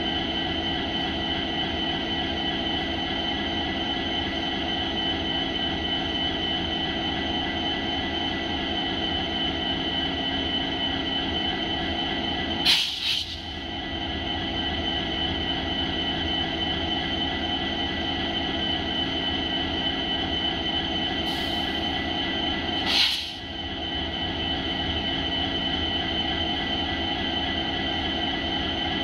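EMD WDG-4D and WDG-4 diesel-electric locomotives idling, their EMD 16-710 two-stroke V16 engines giving a steady low rumble under a constant high whine. A brief sharp noise cuts in twice, about ten seconds apart.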